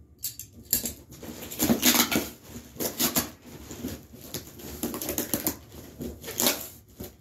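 Cardboard box and packing paper rustling and crinkling as the contents are handled and pulled out, in irregular crackles.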